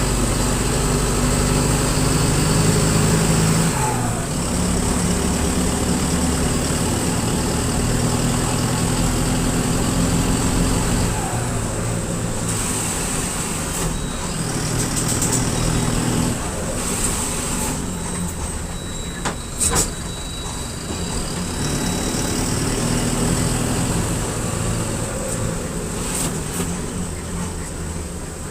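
Mercedes-Benz OF-1721 bus's four-cylinder turbodiesel running through a holed exhaust, its pitch shifting several times as the bus pulls away and changes speed. Short pneumatic hisses and clicks from the air brakes come in now and then, the sharpest a little before two-thirds of the way through.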